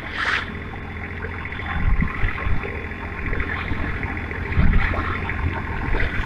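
Long-tail boat engine running steadily at speed, under a rushing noise.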